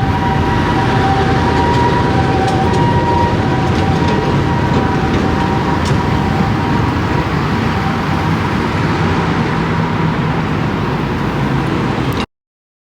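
Large vehicle running close by: a low engine rumble and road noise with a steady high whine. It cuts off abruptly near the end.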